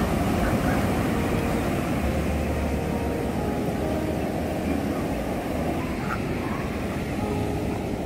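Rough sea surf breaking on a sandy beach: a steady, dense rush of waves.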